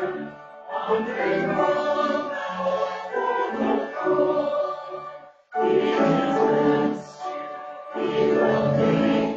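Church congregation and choir singing a hymn together, phrase by phrase, with a brief full stop between lines about five and a half seconds in.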